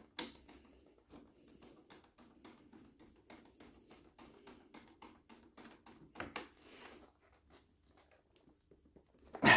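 Light, regular clicking, about three to four clicks a second, from hand work fastening the back connection of a snowboard binding strap. A sharper click comes right at the start and a louder cluster around six seconds in.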